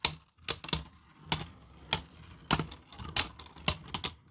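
Two spinning Beyblade tops, one a 3D-printed Supercharged V8, knocking against each other in the stadium with sharp, irregular clicks about two a second over a faint spinning rattle. The tops are losing spin as the battle comes down to stamina.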